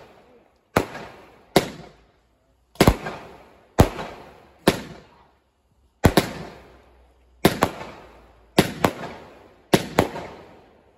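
Fireworks going off: a string of sharp bangs about one a second, each trailing off in a fading echo, with some bangs coming in quick pairs near the end.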